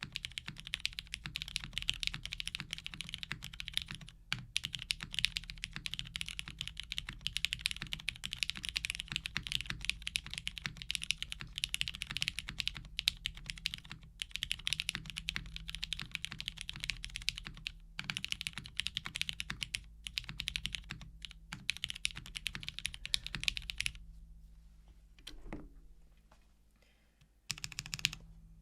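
Fast typing on a Calliope custom mechanical keyboard with 67g MX Black linear switches (filmed and lubed), a polypropylene plate and GMK keycaps: a dense, steady stream of keystrokes. The typing stops a few seconds before the end, leaving a pause with a stray keystroke, then starts again.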